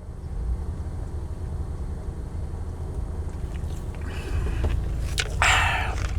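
A steady low rumble while soda is being drunk, with a loud breathy exhale about five and a half seconds in.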